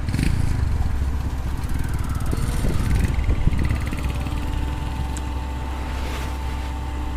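Heavy diesel machinery engine running steadily, with a few irregular knocks and clanks in the first three seconds or so.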